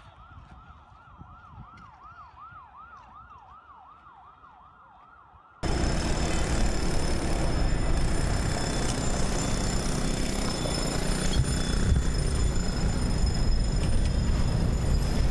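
A faint emergency-vehicle siren yelping, its pitch sweeping up and down about twice a second. About six seconds in the sound cuts suddenly to a loud, steady rush of wind and road noise from a moving vehicle.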